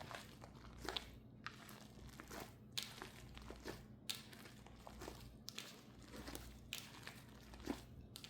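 Something crinkly being handled by hand: faint, irregular soft crackles and clicks, about ten of them spread unevenly, over a steady low hum.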